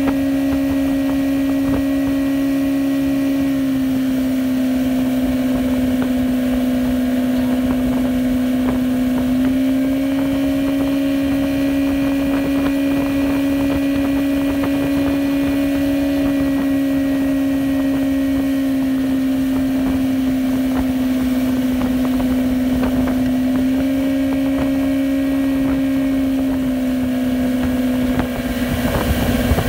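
Johnson 88 SPL V4 two-stroke outboard motor running steadily at planing speed, its pitch shifting slightly up and down a few times, over the rush of water from the wake. Near the end the steady note briefly dips and breaks up.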